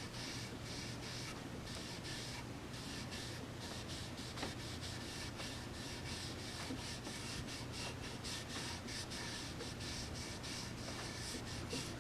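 Faint back-and-forth rubbing of an oil finish into a walnut rifle stock, quick strokes about two to three a second, over a steady low hum.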